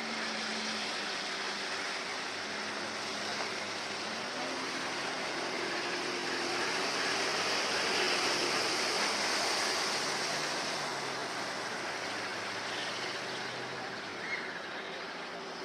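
Engine of a small fast motor craft running at speed across the water, with the hiss of its spray and wake. It grows louder to a peak about halfway through, then fades as it turns away.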